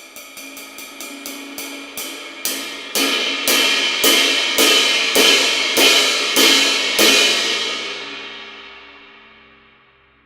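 Mehteran 22" Rain Ride cymbal struck in a steady run that grows louder, the strokes starting at about four a second and slowing to under two a second. After the last stroke, about seven seconds in, the cymbal rings on and fades away over about three seconds.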